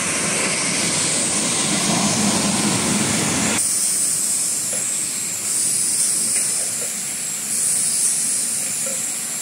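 Bottled-water production line running: a bottle conveyor and a rotary washing-filling-capping machine give a steady mechanical noise with a strong hiss. About three and a half seconds in the sound changes abruptly to a thinner, higher hiss.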